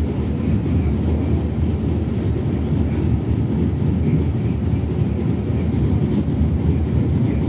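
R68A New York subway car running steadily along the track, heard from inside the car: a constant low rumble of wheels on rails and running gear, with no braking or stopping.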